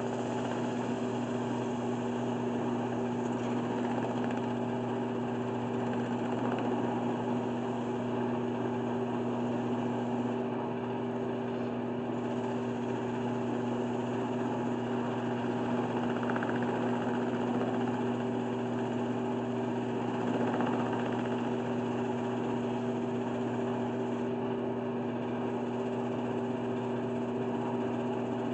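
Wood lathe running at a steady speed: a constant motor hum with an even whir over it.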